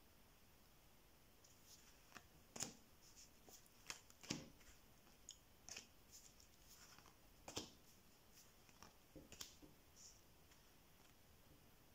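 Neapolitan playing cards dealt one at a time from the deck onto a cloth-covered table: a dozen or so faint, short card flicks and taps, spread out with quiet in between.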